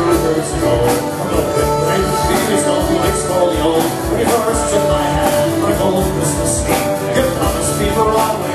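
Live band playing an instrumental passage on accordion, acoustic guitars and drum kit, with a steady drum beat.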